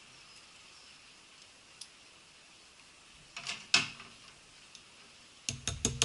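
A short clatter about three and a half seconds in, then near the end a ratchet wrench starting to click rapidly, several clicks a second, as it turns the nut on a car battery's positive terminal clamp.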